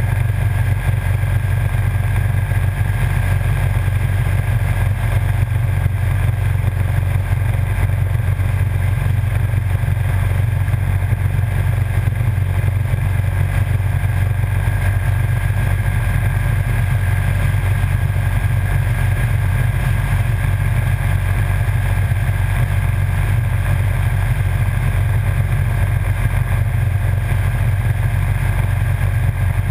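Motorcycle cruising at a steady speed on the open road: a loud, even low drone of engine and road noise that holds without any change in pitch or level.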